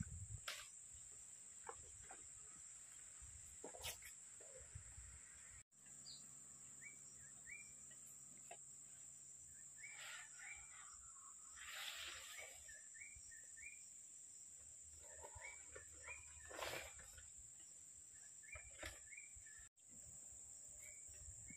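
Faint outdoor countryside ambience: a steady high-pitched insect drone, small birds chirping in short rising notes, and a few brief knocks.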